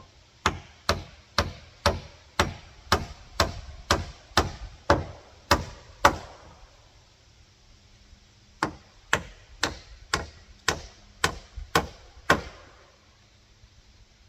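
Hammer blows on wood, driving nails into the coop's wooden framing: a run of about a dozen steady strikes at roughly two a second, a pause of about two seconds, then a second run of about nine strikes.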